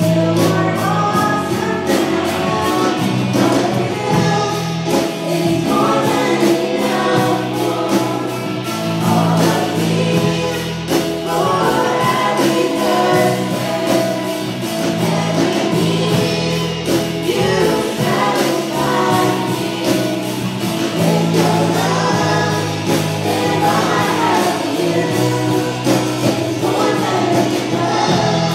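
Live gospel worship music: several voices singing together through a PA, over a band playing a steady beat with sustained bass notes.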